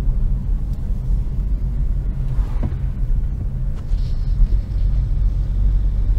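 Steady low rumble of a car's engine and tyres heard from inside the cabin while driving on the road.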